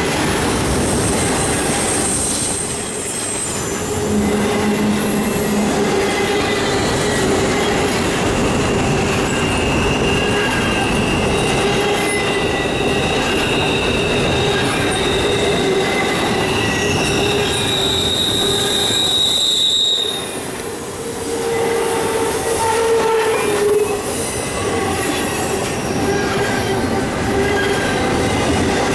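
Double-stack intermodal well cars rolling past on a curve: a steady heavy rumble and clatter of wheels on rail, with wheel flanges squealing in several shifting tones. A high squeal is strongest about two-thirds of the way through.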